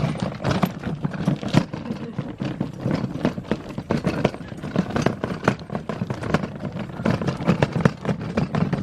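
A wheeled cart or wagon rattling and clattering as it is pulled over rough ground, with dense, irregular knocks over a steady low rumble.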